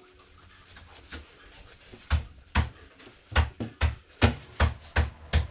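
A series of about eight heavy chopping blows, starting about two seconds in and coming roughly two to three a second: a butcher chopping through carcass meat and bone on a block.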